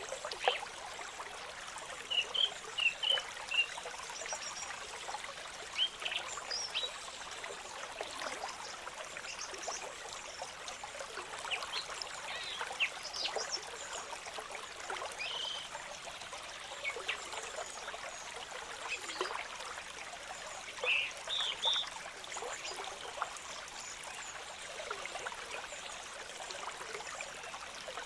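Small stream of water trickling steadily. A cluster of short high chirps comes a couple of seconds in and another about three-quarters of the way through, with scattered single chirps between.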